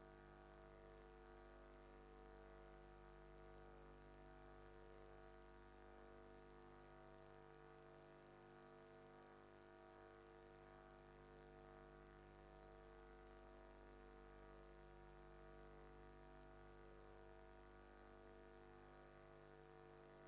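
Near silence: a faint steady hum with a high, evenly pulsing whine above it.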